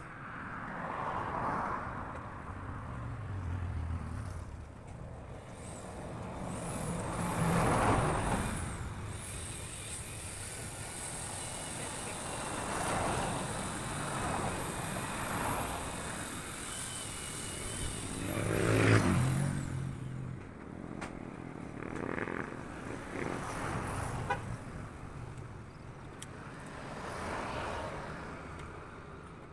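Road traffic passing: motorcycles and cars going by one after another, each swelling and fading, the loudest about eight and nineteen seconds in.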